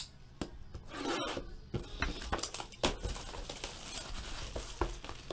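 Cellophane shrink wrap being torn and crinkled off a sealed trading-card box, with several sharp clicks and taps as the box is handled.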